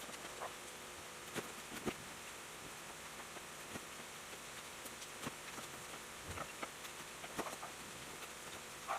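Scattered light clicks and taps, about one every half second to second, over a steady faint hiss.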